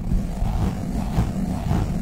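Globbles sticky squish balls being squeezed and rubbed right on the microphone, giving a dense, loud, low rumbling crackle with a few faint smacks.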